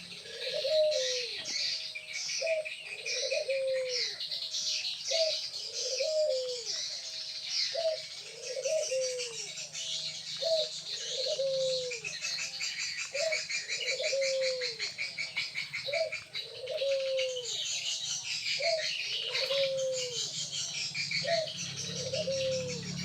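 Birds calling: a short low call repeated about once a second, over a dense chatter of high chirps.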